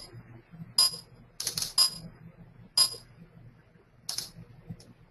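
A string of about seven short, sharp clinks, irregularly spaced. Each has the same brief high ringing tone, like a small metal or glass object being tapped, with a quick cluster of three about a second and a half in.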